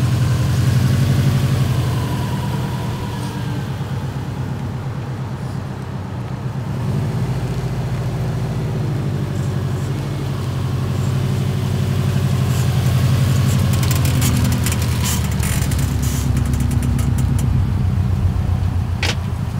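Subaru WRX running, with a creaking, screeching noise from the passenger-side front wheel that is taken for a bad wheel bearing. A low, steady engine drone carries throughout, and sharp clicks or creaks come in the last few seconds.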